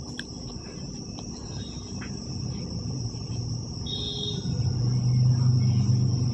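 Steady high trill of crickets, joined about halfway through by a low steady hum that grows louder. Faint rustles come from cotton suit fabric being unfolded.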